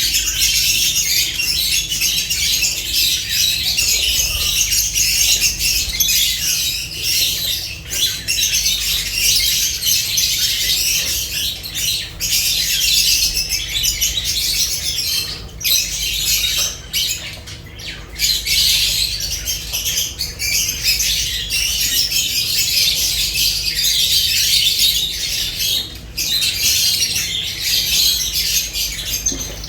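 A flock of lovebirds chattering and squawking without pause in high, shrill calls, easing briefly a little past the middle. A faint steady low hum runs underneath.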